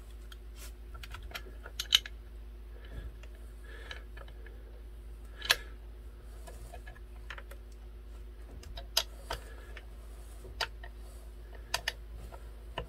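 Scattered light clicks and taps from handling an electric guitar kit's neck and parts on a workbench, with a few sharper clicks about 2, 5.5, 9 and 12 seconds in, over a faint steady hum.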